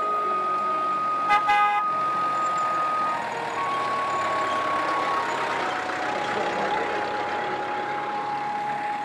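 Old Willys-style jeep driving down a dirt track and passing close by, its engine and tyre noise loudest a few seconds in. There is a short toot about a second and a half in, and background music with long held notes plays throughout.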